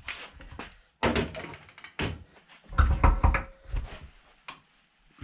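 Hammer knocking on a wheel hub clamped in a steel bench vise to seat it more firmly: a run of separate heavy knocks with a short metallic ring, with a quick cluster of blows around the middle.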